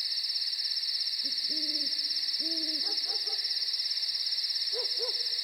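Crickets trilling steadily throughout, with an owl hooting in short low calls: a run of hoots from about a second in, and two more near the end.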